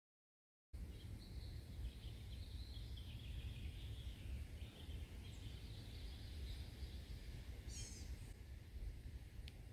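Outdoor ambience that starts abruptly after a moment of dead silence: a steady low wind rumble on the microphone, with small birds chirping and twittering in the background and a brief higher trill near the end.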